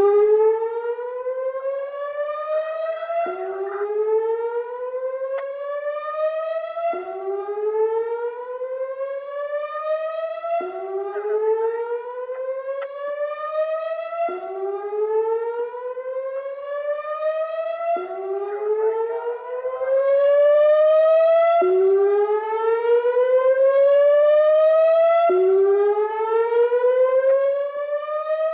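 ATI HPSS-16R rotating electronic outdoor warning siren sounding its whoop tone during a weekly test. Each whoop is a rising sweep lasting about three and a half seconds before it drops back and starts again. It grows louder for a few seconds in the second half.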